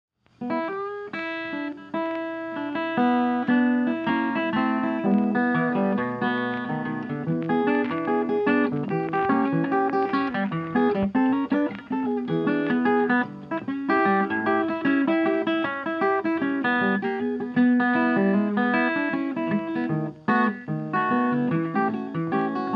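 Instrumental background music: a plucked guitar melody of many short notes over a lower bass line.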